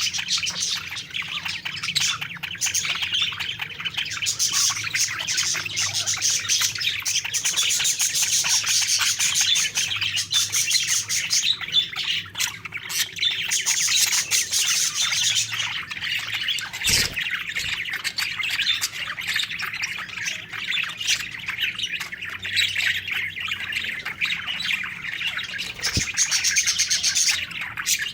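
Budgerigars (parakeets) chirping and warbling together in a dense, continuous chatter of many birds at once, with a single sharp knock about two-thirds of the way through.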